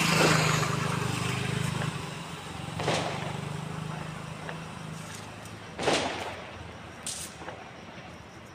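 A motor vehicle passes on the street, its engine hum swelling at the start and fading away over the next few seconds. Firecrackers burst with sharp bangs about three seconds apart, a third fainter one soon after.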